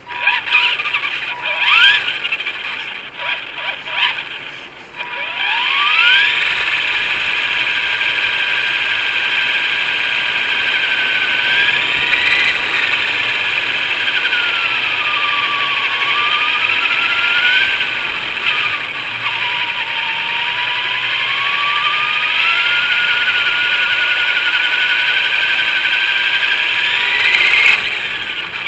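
Typhon RC car's electric motor and drivetrain whining under throttle. There are several quick bursts of speed in the first five seconds, then a long run with the whine rising and falling as it speeds up and slows. A steady high tone sits under it throughout.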